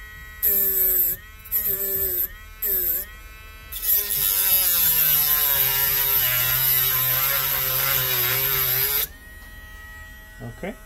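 Small high-speed grinding wheel grinding down the protruding ends of laptop hinge screws, which are soft copper rather than steel. The motor whine drops in pitch and turns hissy each time the wheel bites: three short touches, then one long grind of about five seconds, before it runs free again.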